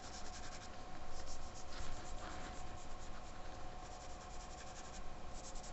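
Green soft pastel stick scratching across drawing paper in repeated strokes, a soft dry hiss as colour is laid into the shading.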